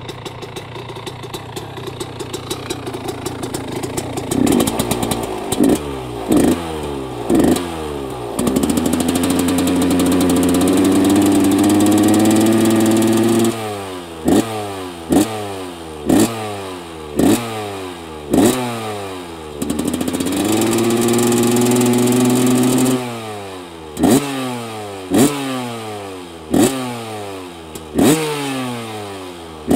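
1996 Yamaha YZ125's single-cylinder two-stroke engine, fitted with a DLR silencer, running just after a cold start. It idles for a few seconds, then is revved with short throttle blips and two held revs of several seconds each, separated by quick blips about once a second.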